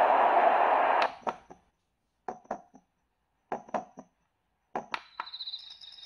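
Conair SU9K sound therapy machine's small speaker switching between nature tracks: an ocean-wave rush cuts off about a second in, then a recorded heartbeat plays as slow double thumps about every 1.2 seconds, and near the end a summer-night track of high cricket chirping starts.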